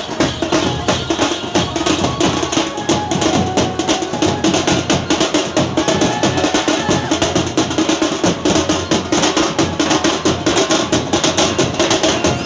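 Live teenmaar drumming: a group of drums beaten fast in a steady, driving rhythm of many strokes a second.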